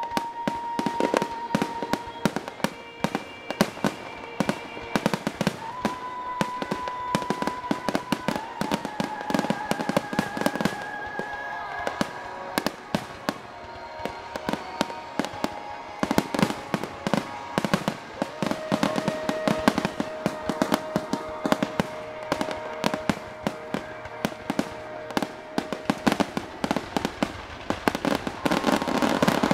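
Fireworks display: aerial shells bursting one after another in a steady run of sharp bangs and crackles. The bangs grow denser and louder near the end as a heavy barrage goes up.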